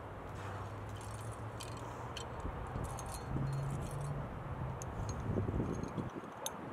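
Climbing hardware, carabiners and cams on a harness gear rack, clinking and jangling in short scattered bursts, over a steady low hum.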